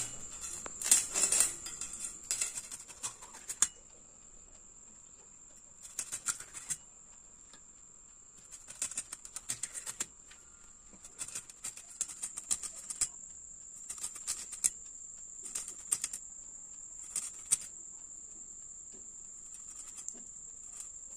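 Hilsa fish being cut into pieces on a boti, a fixed upright curved blade. Irregular bursts of short clicks and scrapes come as the fish is pressed down through the blade, with pauses between them. A faint steady high-pitched whine runs underneath.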